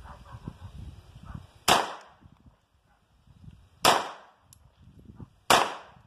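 Three pistol shots, each a sharp crack with a short echo dying away; the first about two seconds after the second, the third about a second and a half after that.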